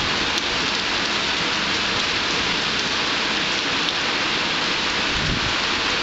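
Heavy rain falling steadily, an even hiss without breaks. Near the end, low wind buffeting on the microphone starts to come in.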